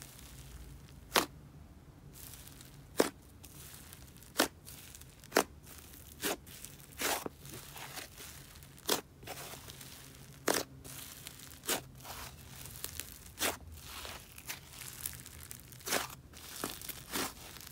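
Soft sizzly butter slime being poked, pressed and pulled by fingers, giving sharp pops and clicks about once a second over a faint crackle as air pockets in the slime burst.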